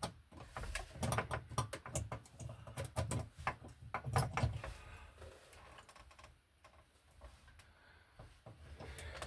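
Quick, irregular clicks and taps of a wall outlet and its wires being handled and pushed onto an electrical box. They are busiest in the first half and grow sparser and quieter after that.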